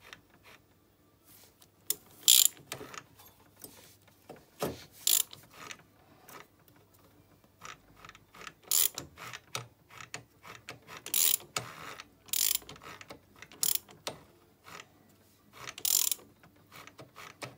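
Hand tools turning a moped engine's crankshaft slowly over by hand with a 14 mm wrench, with the cylinder head off, to bring the piston up to top dead centre for setting the timing. The sound is a series of short metallic clicking bursts at irregular gaps of one to three seconds.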